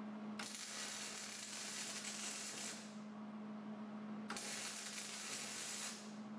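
MIG welding arc on 3/16-inch steel frame scrap with 75/25 shielding gas and .035 wire, hissing and crackling in two beads: one of about two and a half seconds, then after a short break one of about a second and a half. A steady low hum runs underneath.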